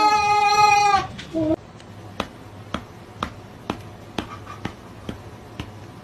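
A cat's long, drawn-out meow ends about a second in, followed by a brief second meow. Then a steady ticking of sharp clicks, about two a second, runs on.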